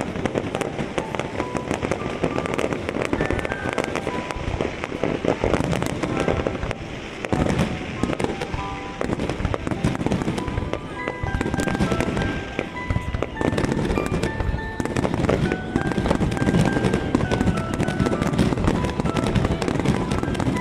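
A fireworks display: shells bursting and crackling in a dense, continuous barrage, with music playing alongside.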